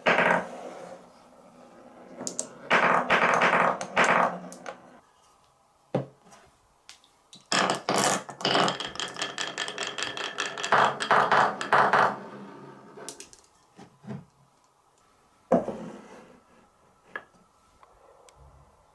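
Glass marbles rolling and clacking through wooden Cuboro marble-run blocks and along a wavy wooden track. There are two long rattling runs full of quick clicks as the marbles knock against the wood and each other, with single sharp knocks at the start, about six seconds in and about fifteen seconds in.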